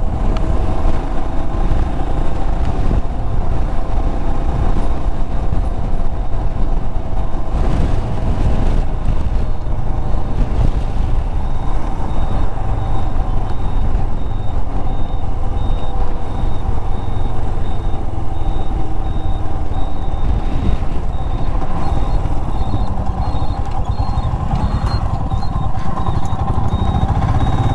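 Royal Enfield Himalayan's 411 cc single-cylinder engine running steadily as the motorcycle rides along, mixed with a constant rush of wind and road noise.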